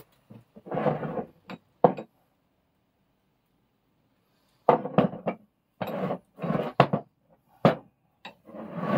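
An old Record No. 1 cast-iron bench vice being shifted, lifted and turned over on a wooden workbench: a series of knocks and scrapes of the heavy iron body against the board, with some metal clinks. Handling falls quiet for a few seconds in the middle.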